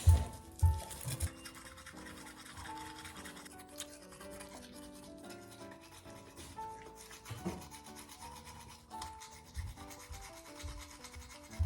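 Light background music with a bouncing melody throughout; under it, soft rubbing and scrubbing of a toothbrush on a dog's teeth, with a few low thumps in the first second and again about ten seconds in.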